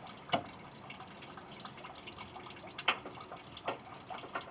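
Antifreeze dripping and trickling from a pickup's radiator as it drains, with a few sharp clicks.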